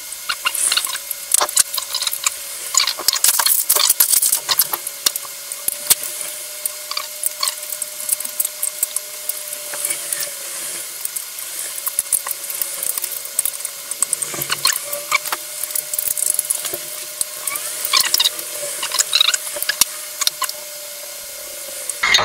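Clicks, knocks and rustling from handling an Invision metal monitor arm and its parts while it is fitted to the back of a monitor, with many sharp clicks close together throughout.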